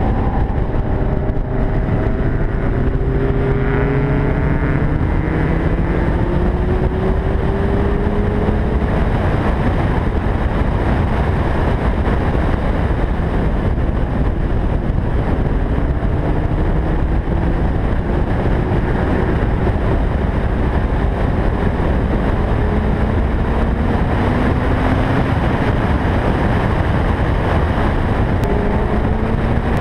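Lotus Elise driven hard on a racetrack, heard from the car: a dense rush of wind and road noise over the engine, whose pitch climbs as the car accelerates near the start, again in the middle and once more near the end.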